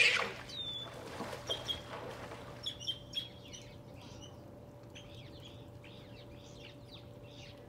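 Otters chirping and squeaking: a loud burst right at the start, then a string of short high chirps, several a second, growing fainter after the first few seconds. The person filming takes these for the sounds of otters breeding.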